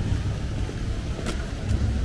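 Steady low rumble of outdoor city ambience, with a faint click a little past halfway.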